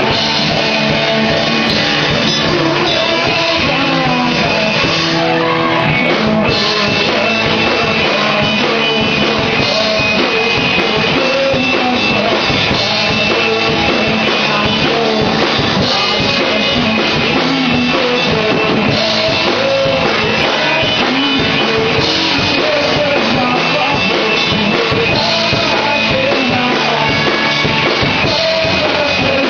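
Rock band playing live, with a singer over electric guitar and drum kit: a Britpop-style song.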